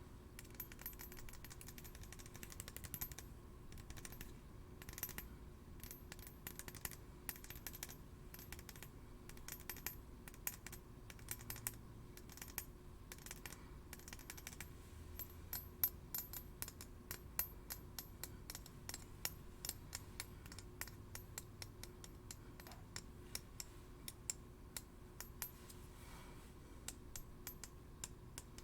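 Steel blades tapped and clinked against each other in quick, irregular soft clicks, some leaving a faint high metallic ring.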